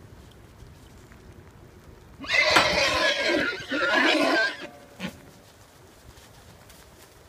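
A horse whinnying once, loud and wavering in pitch, for about two seconds starting about two seconds in.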